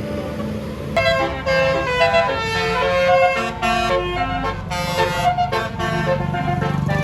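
Tour bus's telolet 'basuri' melody horn playing a tune of stepping, multi-tone notes that starts sharply about a second in, over a low vehicle rumble.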